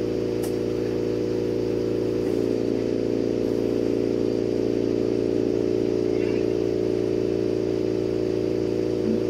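Steady hum of a glassworking bench torch burning while a glass bead is heated in its flame, with a few low pitches held steady under the flame's hiss.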